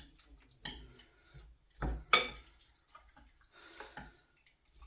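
Kitchenware being handled: a few scattered clinks and knocks, the loudest a sharp clatter about two seconds in.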